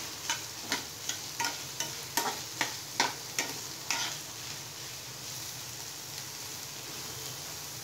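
A spatula scraping and knocking against a kadai as chopped onions and green chillies are stirred in hot oil, about two or three strokes a second. The strokes stop about four seconds in, leaving the steady sizzle of the onions frying.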